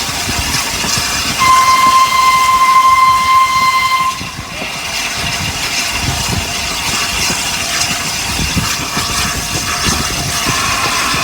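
Peppercorn A1 steam locomotive 60163 Tornado sounding its whistle in one steady blast of nearly three seconds, about a second in, over a continuous hiss of steam and the low rumble of the engine.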